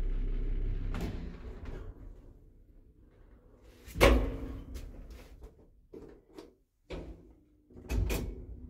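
1984 ZREMB 'Osiedlowy' lift car running with a steady hum that stops with a clunk about a second in as the car halts. About four seconds in, the manual swing landing door is pushed open with a loud bang of its latch, followed by scattered clicks and another door bang near the end.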